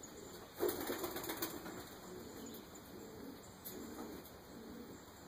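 Pigeons' wings flapping as a kit flies past: a sudden burst of rapid wingbeats about half a second in, lasting about a second, then fainter fluttering.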